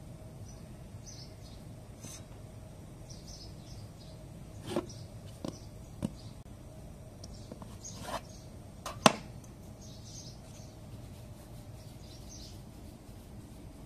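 A few sharp knocks and taps, the loudest about nine seconds in, of a metal dough scraper and dough pieces on a metal tray as a block of dough is cut and divided into balls. Faint high chirps sound in the background.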